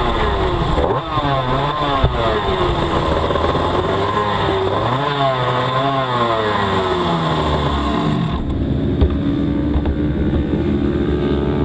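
Yamaha TZ250 two-stroke racing motorcycle engine heard from on the bike, its pitch rising and falling several times as the bike slows down. About eight seconds in, the rush of wind drops away and the engine settles to a steadier, lower note as the bike comes nearly to a stop.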